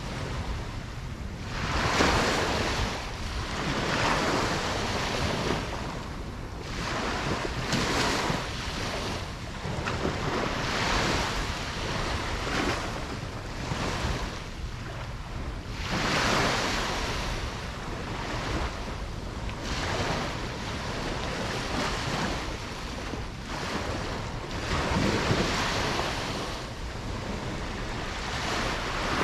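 Ocean waves breaking and washing on a beach, the surf swelling and falling every few seconds, with wind rumbling on the microphone.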